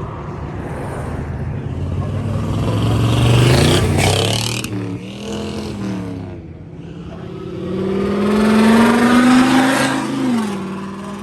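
Mazda Miata's four-cylinder engine revving as the car accelerates past. The pitch climbs, drops at a gear change about four and a half seconds in, climbs again to a second peak, then falls away as the driver lifts off near the end.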